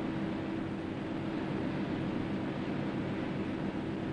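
Steady drone of a steam-turbine ship's engine-room machinery: an even rushing noise with a constant hum underneath.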